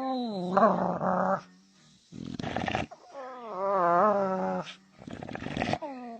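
A dog making strange drawn-out vocal noises: a long call that drops in pitch, a harsh breath, then a second call whose pitch wavers up and down, followed by another harsh breath.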